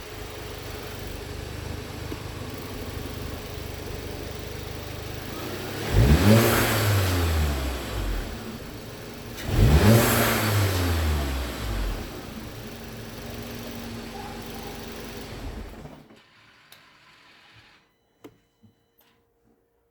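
Volkswagen MK7 GTI's turbocharged 2.0-litre four-cylinder idling just after start-up, with a K&N drop-in air filter fitted. It is blipped sharply twice, about six and ten seconds in, each rev falling quickly back to idle, and is switched off about sixteen seconds in. A few faint clicks follow.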